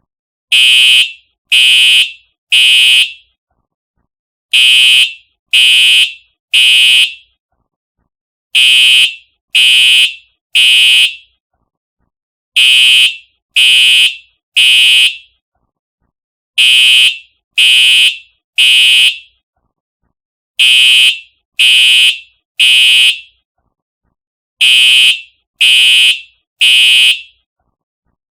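Simplex TrueAlert fire alarm horn sounding in the temporal-3 evacuation pattern: three short, loud blasts about a second apart, then a pause, repeating every four seconds.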